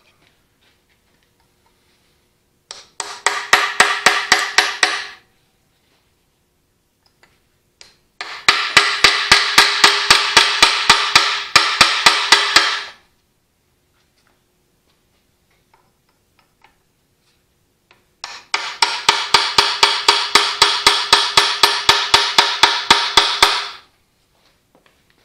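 Rapid metal-on-metal hammering on a steel tool held against a broken bolt in a cast-iron tractor arm, in three bursts of about five blows a second, each blow ringing.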